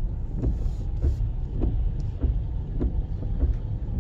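Car's engine and tyres rumbling on a wet road, heard from inside the cabin, with a regular tick a little under twice a second.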